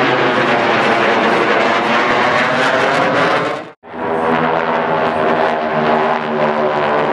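Aircraft flying overhead: a jet fighter and a propeller warbird pass together, noisy with engine tones in it. Nearly four seconds in an abrupt cut brings the steady drone of a six-plane formation of GEICO Skytypers SNJ trainers and their radial engines.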